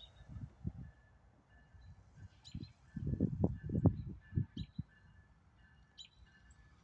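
Birds chirping in the woods, with a few short, sharp downward chirps. Irregular bursts of low rumble come through the middle and are the loudest sound.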